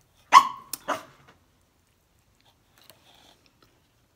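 Dog barking at a table where food is being eaten: one loud, sharp bark about a third of a second in, then a shorter one just under a second in, after which only faint small ticks remain.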